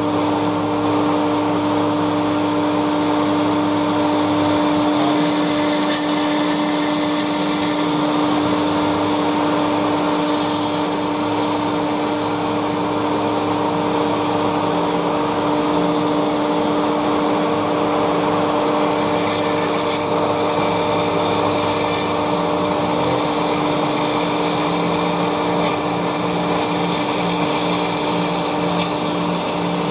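Laguna Smartshop 2 CNC router running steadily while cutting foam: a constant whine from the spindle over a rushing noise, with a lower hum underneath that shifts a few times.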